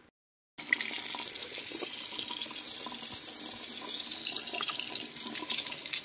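Water tap running steadily into a bathroom sink, starting abruptly about half a second in.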